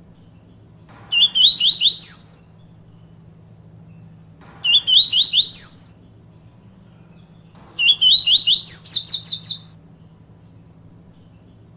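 Yellow-bellied seedeater (papa-capim) singing: three short phrases of quick rising whistled notes, about three seconds apart, the last ending in a faster, higher run.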